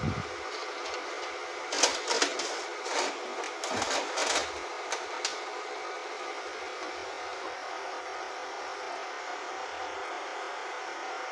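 Clicks and rustles as a small speaker circuit board is handled and turned over on a rubber work mat, about two to five seconds in, over a steady airy hiss like a hot-air rework station's or a fan's blower.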